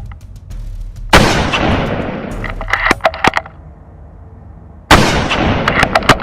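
Two loud rifle shots about four seconds apart, each starting suddenly and trailing off over about a second, followed by a quick run of sharp clicks.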